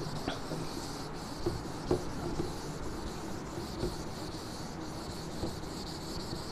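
Whiteboard eraser rubbing across the board, wiping off marker writing, with a few light knocks against the board.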